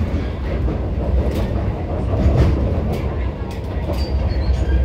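Interior running noise of an MTR Kwun Tong line C-Train on the move: a steady low rumble of wheels and traction equipment with occasional clicks from the wheels on the rails.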